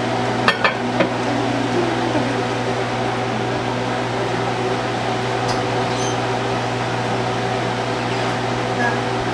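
Steady electrical hum of a running kitchen appliance such as a microwave oven or fan, with a low drone and several steady tones, and a few sharp clicks about half a second in.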